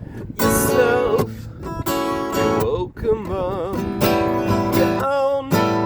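Acoustic guitar being strummed in a song, with a voice singing wavering, vibrato-laden notes over it from about halfway through.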